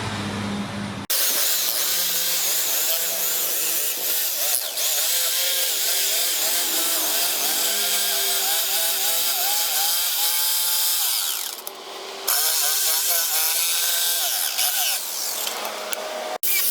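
Electric grinder grinding steel, its whine wavering up and down in pitch as the load changes. It is briefly interrupted about twelve seconds in and cuts off abruptly near the end.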